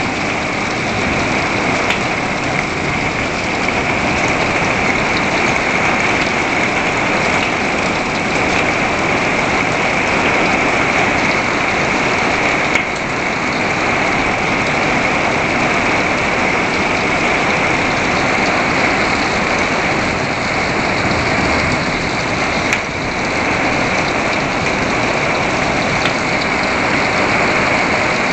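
Heavy rain falling steadily on a wooden deck, plastic buckets and plant pots: a loud, even hiss.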